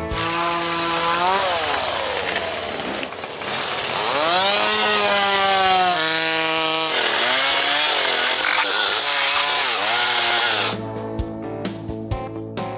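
Small chainsaw cutting firewood logs, its motor pitch repeatedly sagging as the chain bites into the wood and rising again as it frees. Near the end the saw stops abruptly and guitar music takes over.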